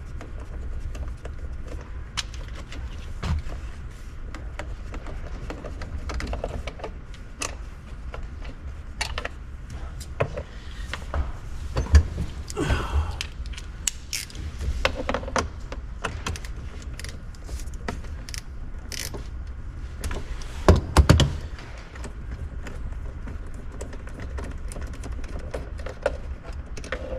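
Irregular clicks and knocks of a hand tool working the two 8 mm bolts behind a Jeep TJ's steering-wheel airbag, over a steady low hum, with a couple of louder thunks about halfway and two-thirds of the way through.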